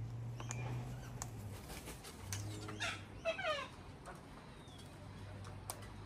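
Sulphur-crested cockatoo giving a quick run of short chattering calls about three seconds in, with a few sharp clicks before and after.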